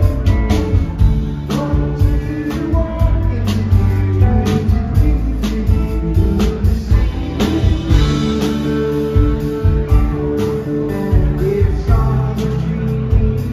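Live rock band playing: electric guitars, bass and drums with a saxophone, over a steady drum beat.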